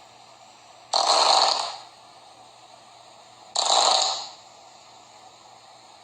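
Breathy, hissing farts: two short blasts about two and a half seconds apart, each starting suddenly and fading within a second, with a third beginning at the very end.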